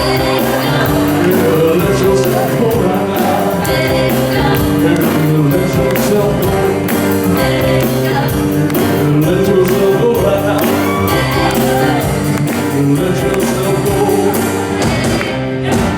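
Live band playing with a lead singer over a steady drum beat; the music stops right at the end.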